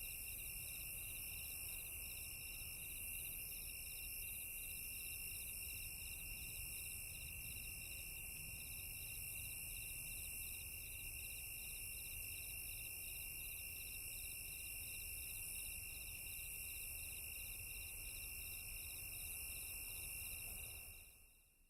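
Crickets chirping in a daytime outdoor ambience: a steady high trill with a regular pulsing chirp over it. It fades out near the end.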